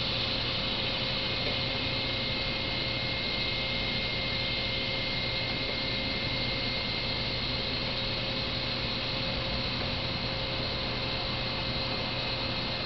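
A steady hum under an even hiss, with a faint high-pitched whine; it does not change.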